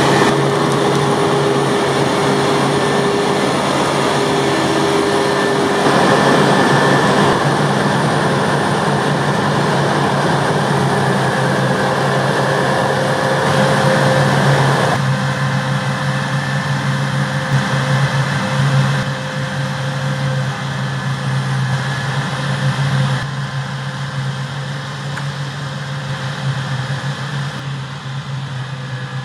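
Diesel engines of heavy harvest machinery running at steady speed: a deep drone with a fainter whine above it. The sound changes abruptly in level a few times and gradually fades near the end.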